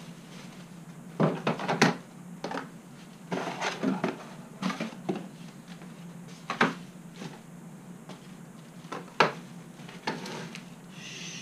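Irregular knocks, thuds and clatters of a cardboard box and packaging being handled and set down on a workbench, over a steady low hum.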